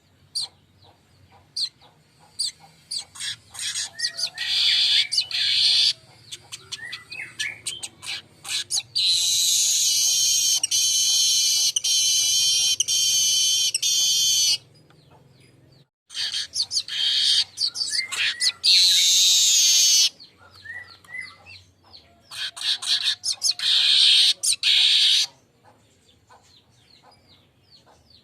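Weaver bird (manyar) song: runs of dry ticks that speed up into long, high buzzing chatters, about four bouts with short pauses between them, the longest lasting about five seconds.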